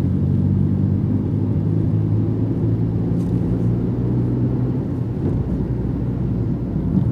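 A moving car heard from inside: a steady low rumble of engine and road noise, with a low even hum that fades out about five seconds in.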